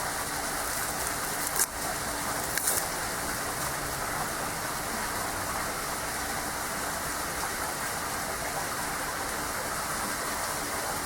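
Steady rushing background noise, like rain, with a couple of brief crinkles about two seconds in as cellophane wrap is pulled off a card deck box.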